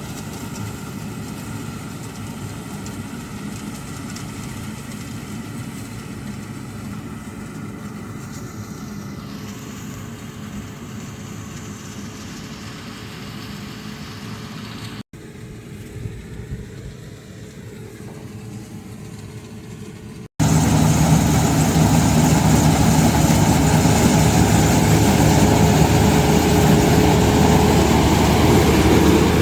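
Farm machinery engines running steadily, heard across edited cuts. First comes a moderate drone, then a quieter stretch about halfway through, then a much louder, closer engine with a steady low hum for the last third.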